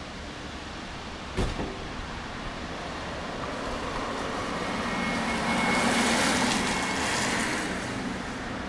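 Street traffic: a vehicle passing, its noise swelling over a few seconds and then fading. There is a sharp knock about a second and a half in, and a thin high tone briefly near the loudest point.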